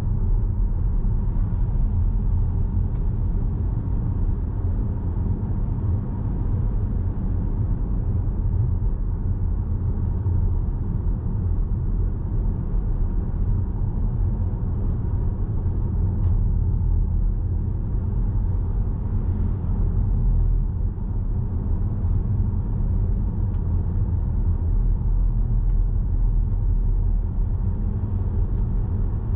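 Car driving steadily at road speed, heard from inside the cabin: a continuous low rumble of tyres and engine.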